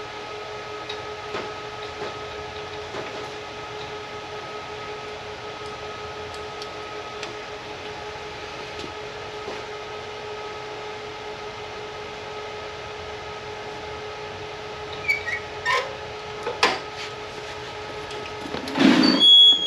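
Metal parts of a California Trimmer reel mower being handled and adjusted over a steady background hum: scattered light clicks, then a few sharp metal knocks near the end and a loud metal clatter with a brief ring just before the end.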